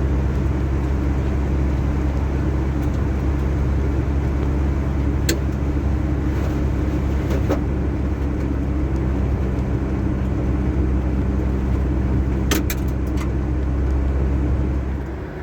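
Vehicle engine idling steadily while warming up after a cold start, heard close to the exhaust. A couple of faint ticks come about five seconds in and again near the end.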